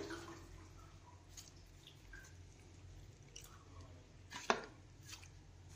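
Faint, sparse clicks and taps of kitchen handling over a low hum, with one sharper click about four and a half seconds in.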